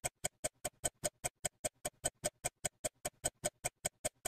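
Clock-ticking sound effect: rapid, even ticks, about five a second, with silence between them.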